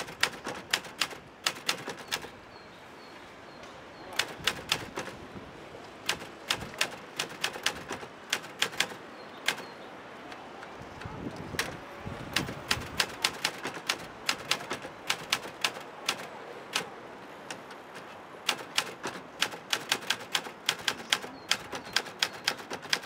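Portable typewriter being typed on: fast runs of sharp key clacks, broken by a few short pauses.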